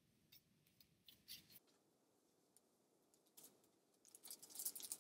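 Handmade cardstock greeting cards being slid and laid down on a wooden tabletop: faint papery rustles and light taps, a few within the first two seconds and a denser run near the end.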